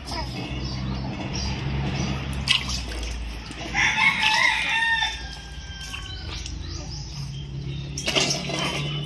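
A rooster crows once about four seconds in, a single drawn-out call lasting about a second and a half, over a steady low hum.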